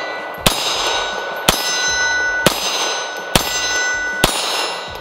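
Beretta M9 9mm pistol firing five shots at a steady pace, about one a second. Each hit sets the steel targets ringing with a sustained clang that carries on until the next shot.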